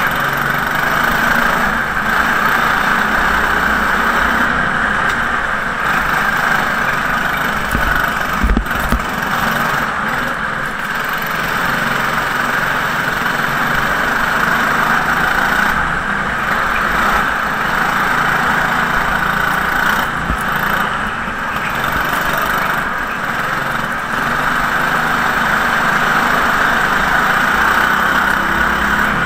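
Go-kart engine running steadily at racing speed, heard on board the kart, its pitch rising and falling a little through the laps. A short sharp knock about eight and a half seconds in.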